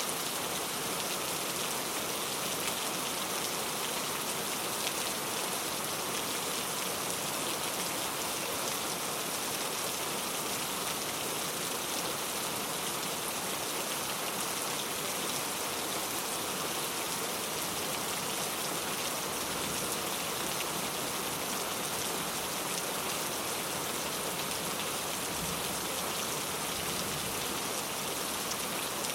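Steady rain falling, a constant even hiss of drops with no thunder.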